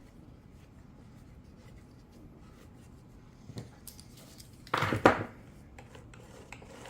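Hands working a cordless chainsaw's bar and chain, with a small click and then one short clatter about five seconds in, as the newly fitted chain is checked for tension.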